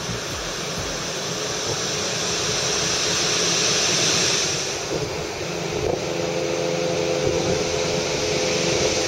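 Surf breaking on a rock jetty, mixed with wind noise on the microphone. From about six seconds in, a steady motor hum joins.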